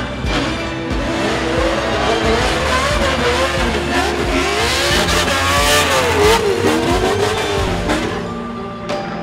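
Drift car engine revving up and down through a drift, with tyre noise loudest in the middle, over background music. The engine fades near the end.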